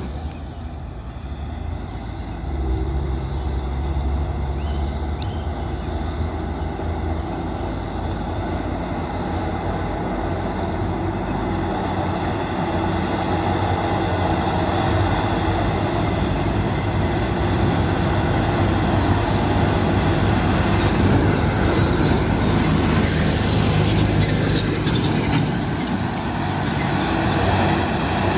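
Hino 500 series truck's diesel engine pulling uphill, a steady heavy drone that grows louder as the truck comes closer.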